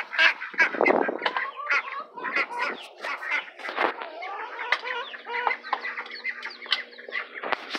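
Backyard chickens clucking and calling, a busy run of short overlapping calls.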